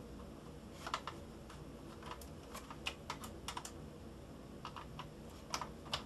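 Faint, irregular small clicks and ticks of a Phillips screwdriver turning the spring-loaded heatsink screws on a Dell Latitude D610 laptop, a little at a time.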